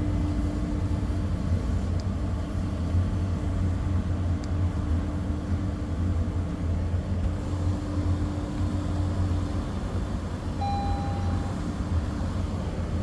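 Toyota Land Cruiser 300's engine idling steadily, with a short electronic beep about eleven seconds in.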